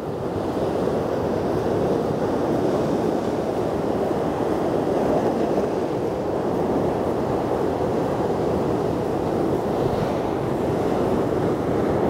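Heavy ocean swell surging and breaking over rocks: a dense, steady rush of surf that builds in the first second, then holds.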